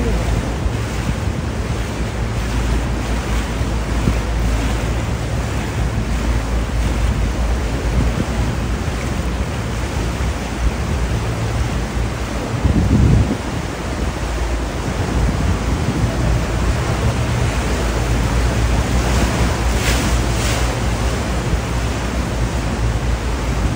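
Steady rushing noise over a strong low rumble, with a brief louder swell about halfway through.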